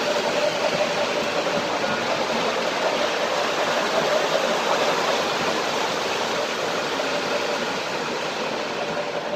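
O-gauge model trains running on their track: a steady rushing noise of metal wheels rolling on the rails, with a steady hum under it.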